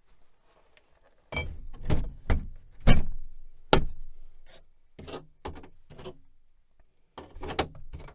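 Computer hardware being handled and set down on a bench: a string of sharp knocks and clunks, the heaviest coming between about one and four seconds in, then lighter taps and a last cluster near the end.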